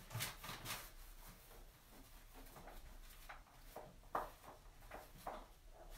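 Faint, intermittent scraping and rubbing from stone-coating work at a countertop: a handful of short rasping strokes, the sharpest about four seconds in.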